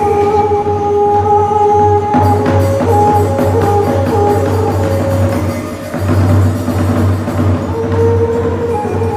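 Traditional Khmer ngũ âm (pinpeat) ensemble music: a melody of long held notes over a steady low drum pulse and light percussion.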